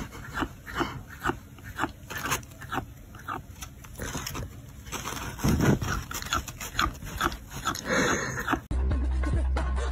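An animal's short noises, repeated every third to half second. About nine seconds in they cut off and music with a strong low beat starts.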